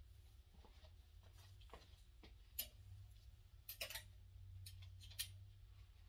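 Near silence: room tone with a steady low hum and a few faint scattered clicks.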